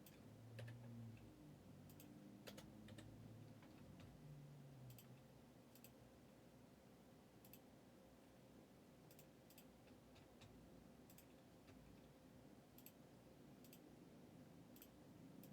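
Near silence with faint, irregular clicks of computer keys being pressed.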